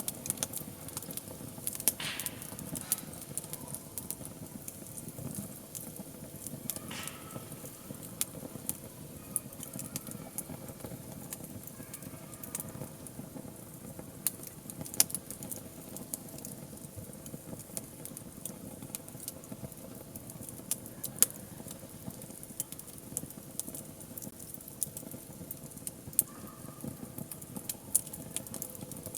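Wood fire burning with a steady low rustle, crackling with frequent sharp pops. Brief hisses come about 2 and 7 seconds in.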